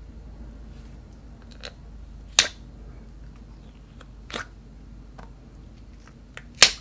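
Clear slime with soft clay balls pressed and poked by fingers in a plastic container, giving a few sharp popping clicks. Two loud pops come about two and a half seconds in and near the end, with smaller ones between.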